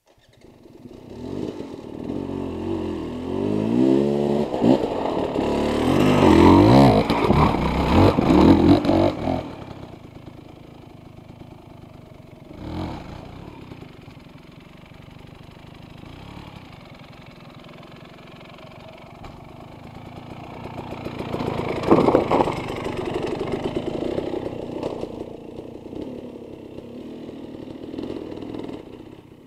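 Dirt bike engine revving hard in rising and falling bursts under load on a steep, rooty climb, loudest over the first nine seconds or so. It then drops back to quieter running, with a sharp knock a little after twelve seconds, and revs up again about twenty-two seconds in.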